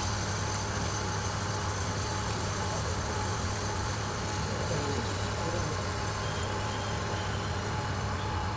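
Lathe running steadily: an even mechanical hum with a strong low drone and a faint steady whine, holding the same level throughout.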